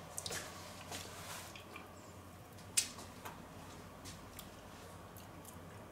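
Faint mouth sounds of someone tasting a spoonful of cheesecake cream filling: small wet smacks and clicks, with one sharper click a little under three seconds in.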